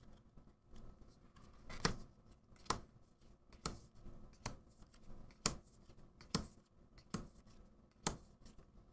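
Magic: The Gathering cards from a freshly opened booster pack being flipped through one at a time, each card giving a short, crisp snap against the stack: about eight flicks, roughly one a second.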